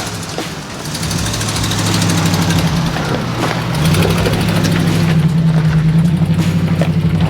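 Off-road vehicle's engine running under load while driving a dirt trail. It grows louder about a second in and again around four seconds in.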